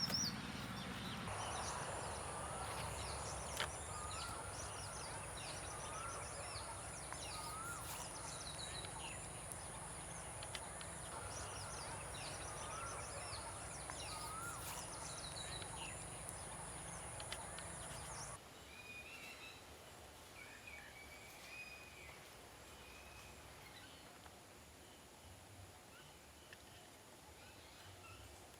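Outdoor birdsong: many short chirps, with one bird repeating a short rising call about once a second, over a steady high-pitched insect drone. About two-thirds of the way through the drone and the chirping stop abruptly, leaving quieter, sparser bird calls.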